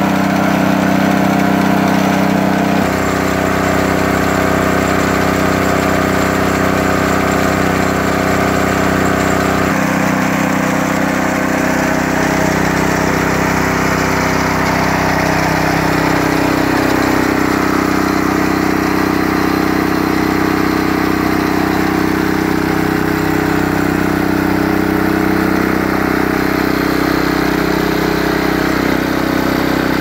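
Small Honda overhead-cam engine on a homemade roller running steadily, its tone changing abruptly about three seconds in and again about ten seconds in.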